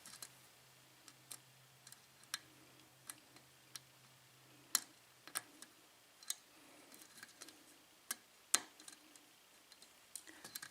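Sparse, irregular small metallic clicks and ticks of a lock pick working the pins of a Yale 6-pin pin-tumbler lock under light tension (single-pin picking), the two loudest clicks about halfway through and again a few seconds later.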